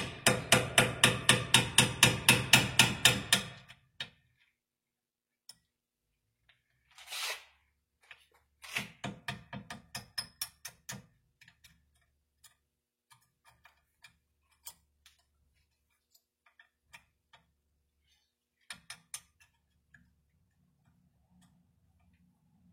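Rapid metal tapping, about five ringing strikes a second for the first three and a half seconds, then stopping; after that, scattered clicks and a short run of lighter taps near the middle.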